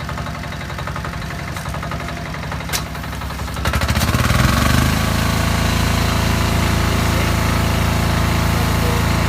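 Karcher HD 1050 DE pressure washer's diesel engine running slowly, then about 4 s in picking up speed and settling at a louder, steady run as the gun is triggered at maximum pressure, with the hiss of the spray over it. The rise is the pressure servo bringing the engine up from idle to full load when water starts flowing.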